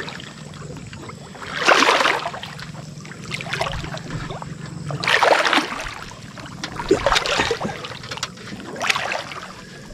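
Water sloshing and splashing as a person wades waist-deep through a shallow creek, in about four swishing surges roughly two seconds apart.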